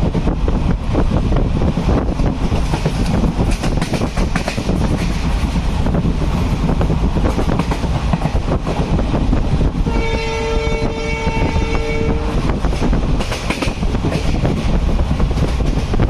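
Railway carriage running over the track: a loud, steady rumble with clickety-clack of wheels over rail joints. About ten seconds in, a train horn sounds for a little over two seconds as a chord of several steady tones.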